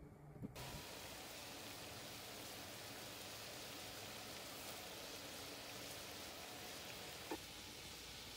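Water at a rolling boil in a pan: a steady bubbling hiss that starts suddenly about half a second in. There is one light click near the end.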